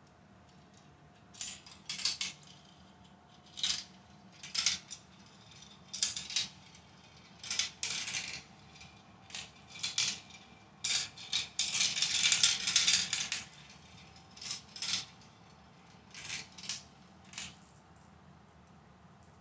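Marbles clattering along and dropping through a plastic marble run track: short bursts of clicks and rattles every second or two, with a longer, denser run of rattling about eleven seconds in.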